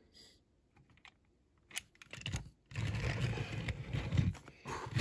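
Handling noise from a small die-cast model car being turned in the fingers. A couple of sharp clicks and taps come a little under two seconds in, then a longer stretch of rubbing and clatter, with more clicks near the end.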